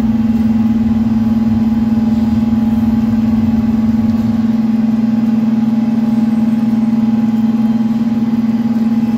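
Steady low-pitched machine hum, one even tone that does not change, with a low rumble underneath that fades about four seconds in.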